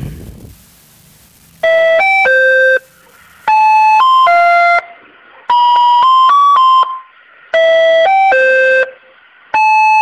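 Intro jingle of electronic bell-like chime notes: short phrases of three or four notes, repeating about every two seconds. It opens with a low boom.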